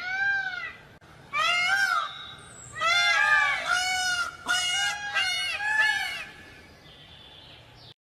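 Peacock calling: about seven loud calls in quick succession, each rising then falling in pitch. The calls stop about six seconds in.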